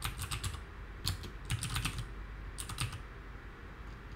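Typing on a computer keyboard: quick runs of keystrokes with short pauses between them, thinning out near the end.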